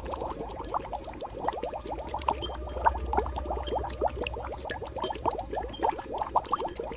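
Bubbling cauldron sound effect: thick liquid bubbling with a dense, continuous run of small pops over a low steady rumble.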